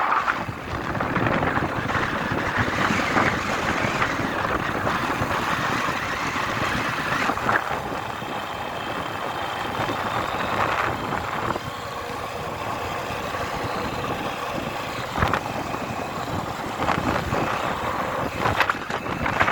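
Wind rushing over the microphone while riding, with steady road and vehicle noise underneath and a few brief knocks.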